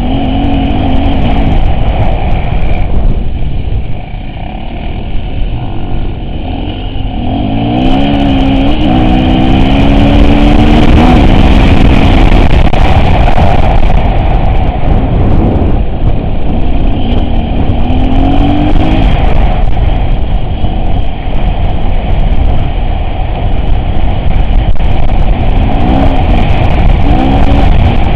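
Off-road vehicle engine running under a loud, steady rumble, revving up and falling back several times.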